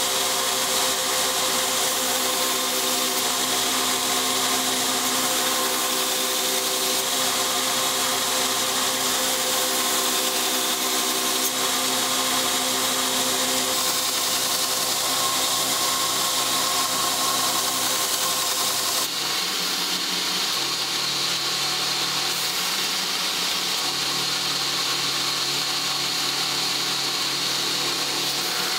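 Belt grinder running, with a hardened steel knife blade held against the abrasive belt for finish grinding. Its steady hum and grinding noise change abruptly about two-thirds of the way in.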